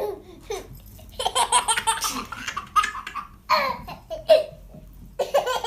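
Young child laughing in several choppy bursts, the longest about a second in.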